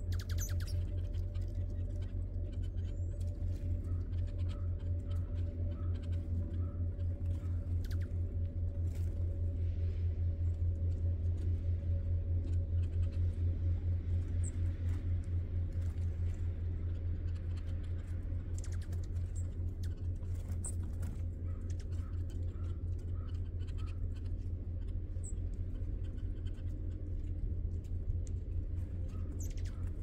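A loud, steady low hum with a rapid flutter, from an unseen source, runs under a few faint, short, high chip notes of small birds feeding at a feeder table.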